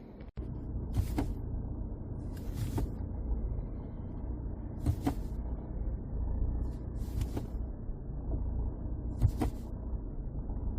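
Volvo car engine idling with a steady low rumble, broken by five sharp knocks a couple of seconds apart.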